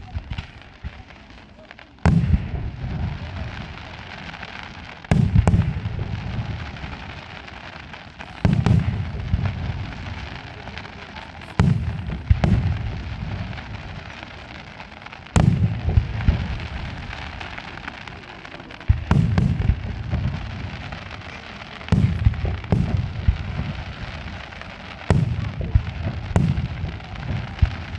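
Aerial firework shells bursting in a pyrotechnic display: about ten deep booms, one every few seconds, each followed by a long rolling rumble of echo.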